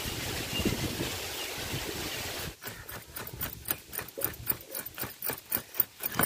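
Outdoor ambience, then from about two and a half seconds in, a coconut half scraped against the serrated blade of a hand coconut scraper, grating the flesh in quick regular strokes, about four a second.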